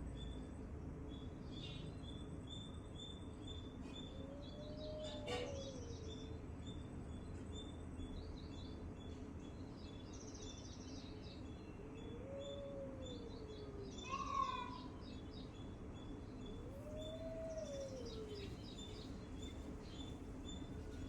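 Birds calling in a natural soundscape: a high chirp repeated about twice a second, with short trills and one louder chirp about two-thirds of the way through. Three times, a long, low call rises and falls in pitch over about a second and a half, above a steady low background hiss.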